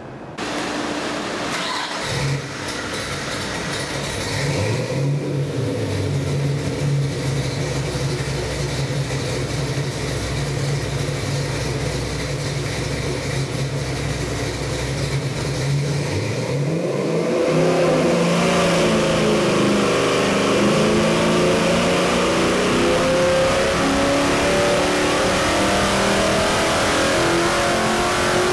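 Ford 347 stroker V8 (a 302-based small-block with a 3.4-inch stroke) on an engine dyno, idling steadily at about 1,000 rpm. About 17 seconds in it starts a full-throttle dyno sweep pull, and the engine note climbs steadily and gets louder as the revs rise past 5,000 rpm under load.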